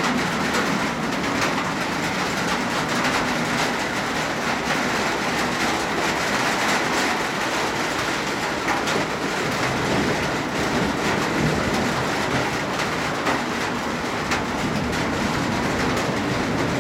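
Heavy rain falling steadily: a dense, even hiss made of many small drop impacts.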